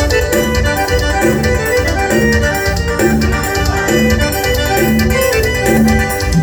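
Forró band playing an instrumental passage between sung lines: a lead melody of held notes over bass and a steady dance beat.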